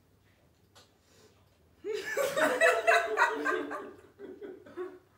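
A young woman bursts out laughing about two seconds in: a run of quick, high laughs that tails off into shorter giggles.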